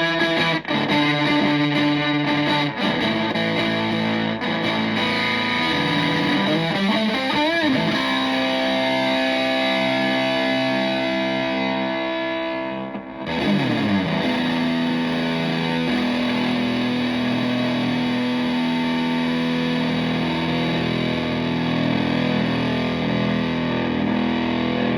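Stratocaster electric guitar through a Tone Bender MKII fuzz pedal and a Fender Twin Reverb–style clone amp: long sustained, fuzz-distorted notes and chords. There is a wavering bend about seven seconds in and a swooping pitch slide about thirteen seconds in.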